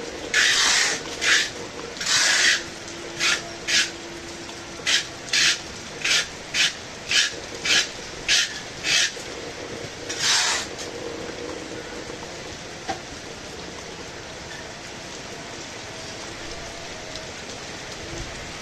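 Steady hiss of heavy rain, with a run of about fifteen short scraping strokes over roughly the first ten seconds, many in an even rhythm of about two a second. After that only the rain is heard.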